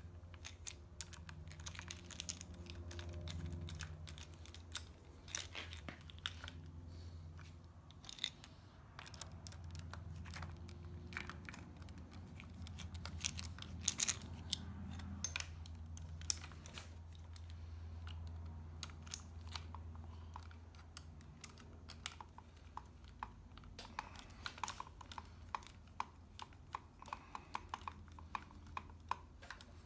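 Hands reassembling motorcycle handlebar grip and switch housing parts: irregular small clicks, taps and rustles of plastic, rubber and hardware being handled and fitted, over a steady low hum.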